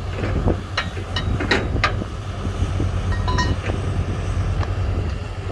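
Heavy earthmoving machinery's diesel engine running with a steady low rumble, with scattered metallic clanks and knocks throughout.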